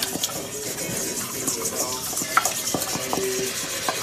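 Chicken pieces being stirred and mixed with seasoning in a bowl: wet stirring with scattered light clinks over a steady hiss.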